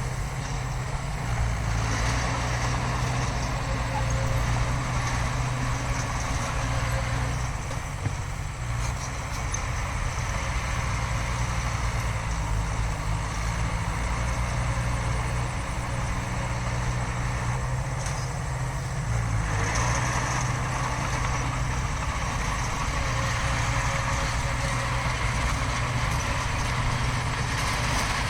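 Heavy diesel earthmoving machinery running steadily, its engine working harder and easing off as it goes, with a louder stretch about two-thirds of the way in.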